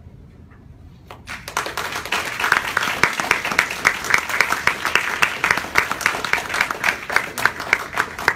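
Audience applauding, starting about a second in and swelling quickly into steady clapping, with one nearby pair of hands clapping at an even beat above the rest.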